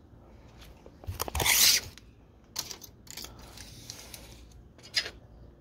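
Metal scraping and a few sharp clicks as a coilover's threaded height adjuster is turned to lower the ride height. The loudest scrape comes about a second in and lasts about half a second.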